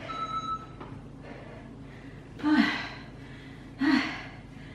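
A woman gasping for breath, out of breath from a high-intensity workout interval: two loud, voiced gasps about a second and a half apart, around the middle.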